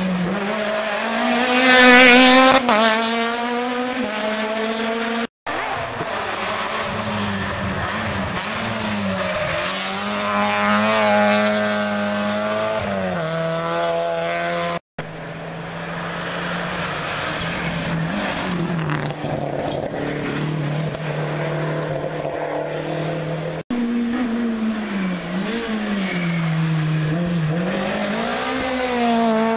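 Rally cars taking corners one after another in separate clips, each engine revving up and falling back through the gears. The loudest pass comes about two seconds in, and the sound breaks off briefly three times where one clip gives way to the next.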